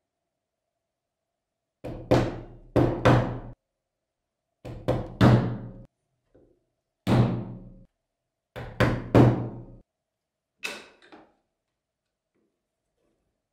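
A mallet striking a multi-prong leather stitching chisel, driving it through the layered wallet leather into a cutting board to punch stitching holes. The blows are sharp knocks with a short ring, coming in groups of two or three with pauses between, about a dozen in all. The last knock comes just before the end.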